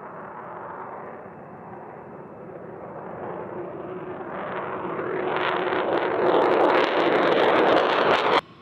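Fighter jet engine noise growing steadily louder, loudest near the end with some crackling, then cut off abruptly.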